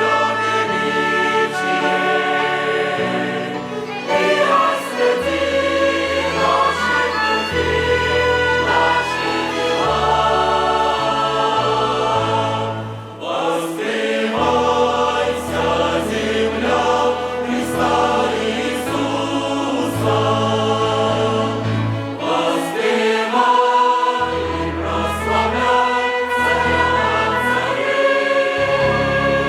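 Church choir singing with a string orchestra accompanying: long held chords over low bass notes that change every second or two.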